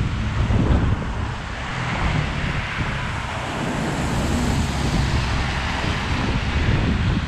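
Wind buffeting the microphone with a low rumble, over the hiss of road traffic on wet tarmac; a vehicle passes and swells louder around the middle.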